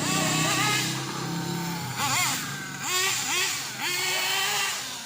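S.H PT28 nitro engine of a 1/8-scale RC buggy running. It holds a steady pitch for about two seconds, then revs up and down quickly several times.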